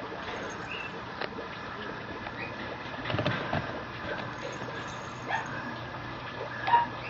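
A Mame Shiba puppy playing with toys gives a few short yips, the loudest near the end, with soft scuffling around the middle, over a faint steady hum.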